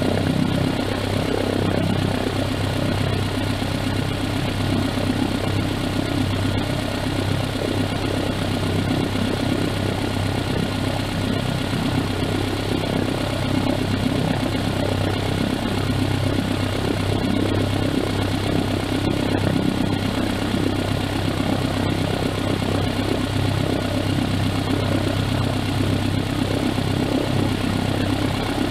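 The MudSkipper ground-effect craft's engine running steadily, a constant drone that holds one pitch throughout.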